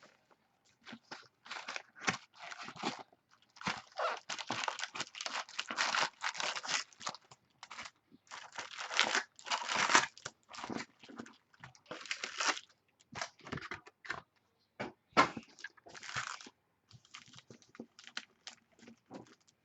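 Packaging of a trading-card box being torn and crinkled as it is opened, in irregular short bursts of tearing and rustling.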